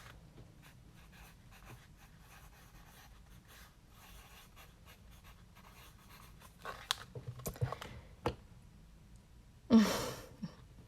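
Trading cards being handled and sorted by hand: faint scraping and rustling, with a cluster of louder short scrapes and clicks about seven to eight seconds in. A short breath is heard near the end.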